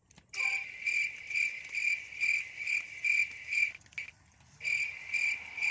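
Cricket chirping: a high, even trill pulsing about twice a second, breaking off briefly about four seconds in.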